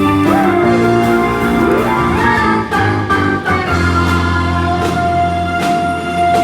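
Worship song played on keyboards: sustained chords under a lead line that slides up and down in pitch.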